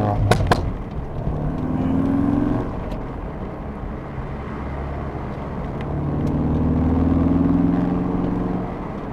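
Ford Focus RS Mk3's turbocharged 2.3-litre four-cylinder exhaust note under acceleration, rising in pitch through the gears. Two sharp exhaust pops come about half a second in.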